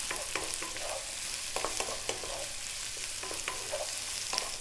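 Sliced onions, celery, garlic and ginger sizzling in hot oil in a non-stick wok on high heat, with a steady hiss. A wooden spatula stirs them, scraping and tapping against the pan about three times a second.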